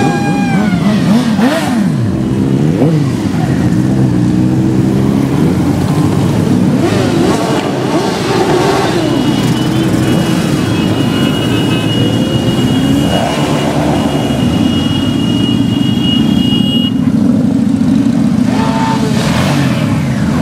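A column of motorcycles riding past one after another on a wet road, engines running and revving, their pitch rising and falling as each bike goes by. A steady high tone sounds for several seconds midway.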